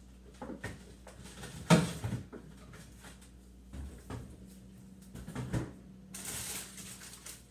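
Kitchen handling noises as the milk is put away in the refrigerator and strawberries are fetched: a sharp knock about two seconds in, a few softer thumps, then a rustling hiss near the end.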